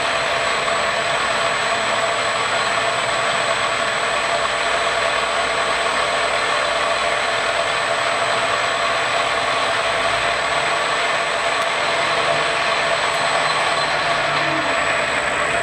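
Grizzly DF-1237G gap-bed metal lathe running and turning a metal bar on a slow power feed, the tool cutting steadily. A steady whirring hiss with a thin, steady high whine over it.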